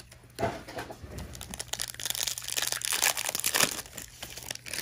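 Crinkling and tearing of a plastic trading-card pack wrapper being ripped open and handled, a dense crackle that starts about half a second in and is loudest in the second half.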